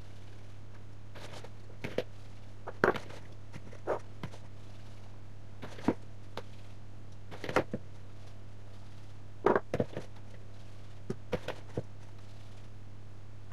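Hands working soft yeast dough: pulling pieces from a plastic bowl, rolling them into balls and setting them down on a stone countertop. Short, irregular taps and knocks sound every second or two over a steady low hum.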